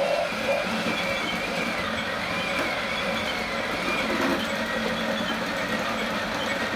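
Small electric motors and gearboxes of radio-controlled model construction vehicles whining, the pitch wandering up and down as the speed changes.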